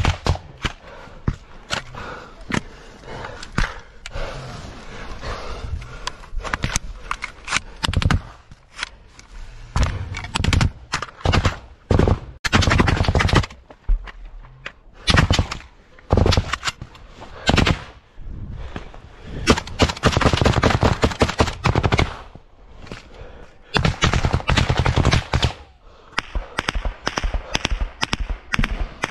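Close automatic gunfire in a trench fight: single shots at an uneven pace at first, then long bursts of rapid fire several seconds each, repeated from about twelve seconds in.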